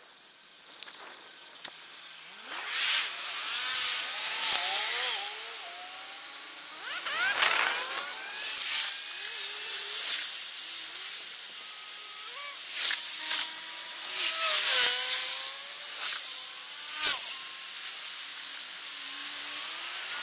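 Sped-up road traffic: passing vehicles turned into quick rising and falling whines, with several short noisy whooshes as they go by.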